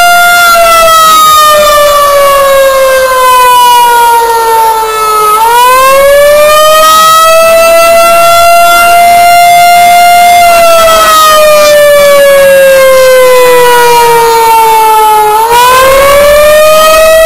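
Outdoor warning siren sounding its monthly test with a loud wailing tone: the pitch slides slowly down over about five seconds, then climbs back up quickly, a cycle that repeats about every ten seconds.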